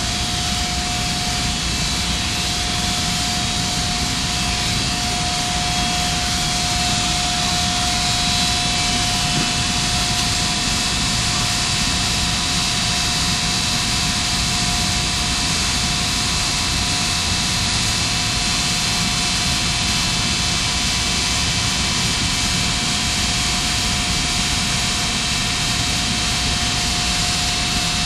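Steady roar of chemical-plant machinery with a constant high whine over it, unchanging throughout.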